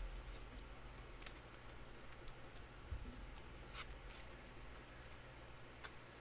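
Faint handling of trading cards and packaging on a table: scattered light clicks and rustles over a low room hum.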